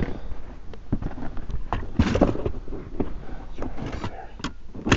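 Irregular knocks, thumps and rustling, with a low rumble: handling and vibration noise picked up by a body-worn camera's microphone.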